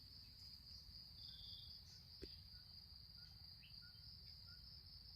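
Faint, steady high-pitched insect trilling, with a few soft short chirps and a single click about two seconds in.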